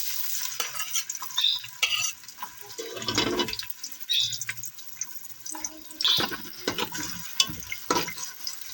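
Onions sizzling as they fry in hot oil in a pressure cooker, the hiss rising and falling in uneven surges with irregular crackles.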